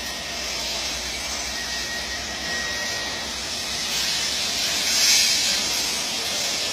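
MIG welding arc sizzling steadily, swelling briefly about five seconds in.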